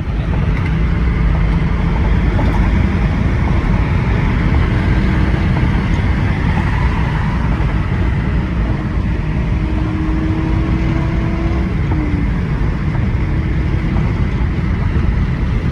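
1997 Ford Mustang SN95 cruising at highway speed, heard from inside the cabin: steady engine and road noise.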